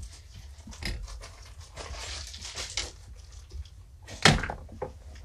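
Kittens scuffling and tumbling on a rug: rustling with scattered small knocks, and one sharp thump about four seconds in.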